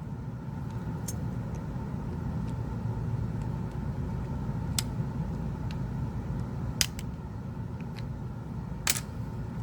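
Steady low background rumble with three short, sharp clicks spread through it, the last a little longer. The clicks are small plastic and metal parts of a Samsung Galaxy S10+ being pried up and handled during a battery replacement.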